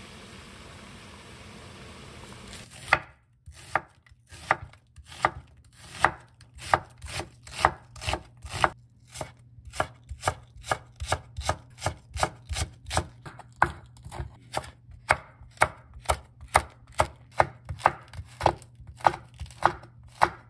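A pot of water at a rolling boil hisses for the first few seconds. Then a chef's knife slices through green onion and chilies onto a wooden cutting board, knocking sharply about twice a second.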